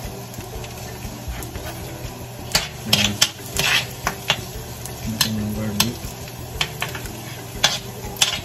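A metal spatula scrapes and clinks against a metal wok, stirring sliced garlic frying in a little oil. Under it there is a steady faint sizzle. The scraping starts a couple of seconds in and comes in irregular strokes.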